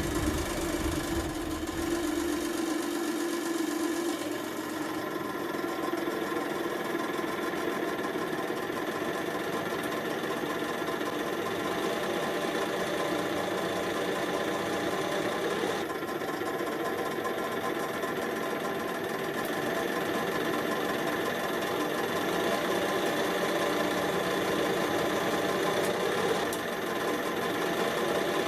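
Hydraulic press running: the motor and pump give a steady mechanical hum and whine with no strong knocks.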